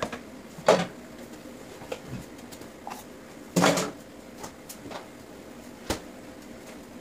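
Scattered knocks and clatters of kitchen things being set down and handled. There is a sharp knock about a second in, a louder, longer clatter around three and a half seconds, and another sharp knock near six seconds, with small ticks between them.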